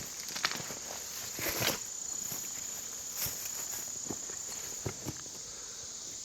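A steady high-pitched insect drone runs throughout, with a few scattered footsteps and rustles over it.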